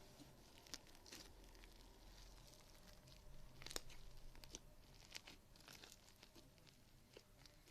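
Slime being handled: faint, irregular small pops and crackles, with a brief louder cluster about halfway through.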